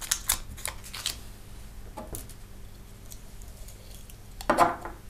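Small handling sounds of sewing: a few light clicks and rustles as a needle and thread are handled and thread is drawn off a reel, then a louder, sharper clatter about four and a half seconds in.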